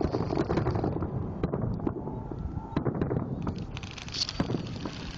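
Fireworks going off: a string of sharp pops and crackles over a steady low rumble.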